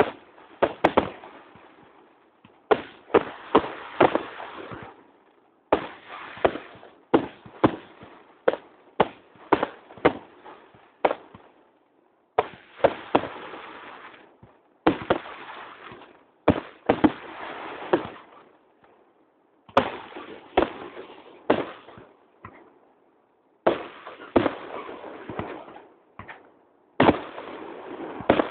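Fireworks display: aerial shells bursting, sharp bangs in quick, irregular succession with a rumbling crackle between them and a few brief pauses.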